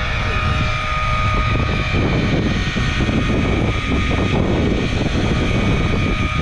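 Electric deep-drop reel's motor whining steadily as it winds line in under the load of a hooked swordfish, over low wind rumble on the microphone.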